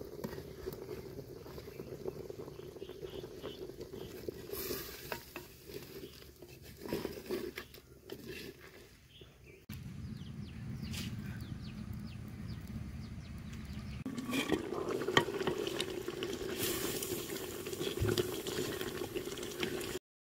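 Wooden ladle stirring and scraping mutton curry in a steaming clay handi, with sizzling. Near the middle there is a few seconds of low rumble with light crackles from the wood fire burning in the clay stove, then the stirring and sizzling return.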